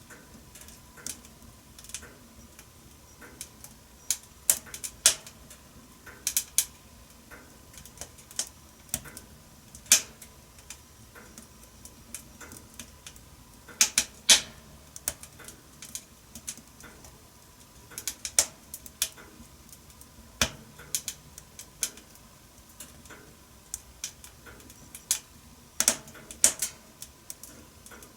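Wood fire in a stove crackling, with irregular sharp pops and snaps, some in quick clusters, over a faint steady hiss.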